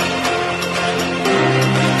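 Background music with a steady beat and held notes, the bass line moving to a new note about a second and a half in.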